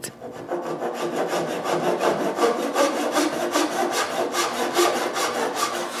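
A fine-toothed handsaw cutting wood by hand, in quick, even, regular strokes.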